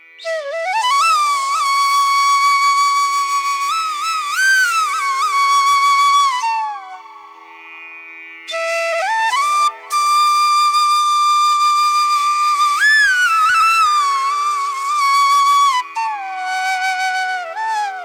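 Instrumental music: a single high melody of long held notes with slides and bends, played over a steady low drone. The melody drops away briefly near the middle, then comes back.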